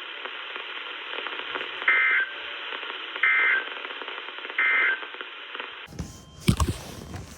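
Weather radio receiver audio: steady static hiss carrying three short bursts of warbling two-tone SAME digital data, about 1.3 seconds apart, the end-of-message code that closes a NOAA Weather Radio alert. About six seconds in the radio audio cuts off, followed by a couple of sharp thumps.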